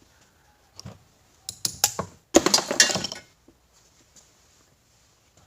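Metal parts of a sawn-open refrigerant compressor knocking and clattering as they are handled: a few separate knocks, then a louder rattling clatter lasting about a second, a little over two seconds in.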